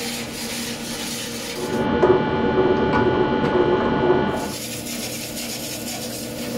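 Large metal-spinning lathe turning a big metal disc while a long hand spatula is pressed against it, giving a steady hum with ringing tones and a rough rubbing scrape. The scraping grows louder and harsher from about two seconds in and eases back after about four and a half seconds.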